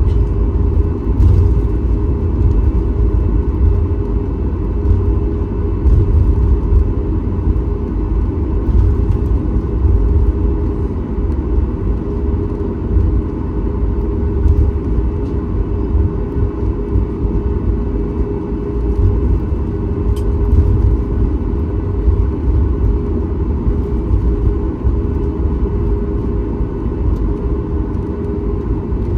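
Boeing 737 MAX 8 engine and airflow noise heard inside the passenger cabin: a loud, steady, deep rumble with a constant low hum over it.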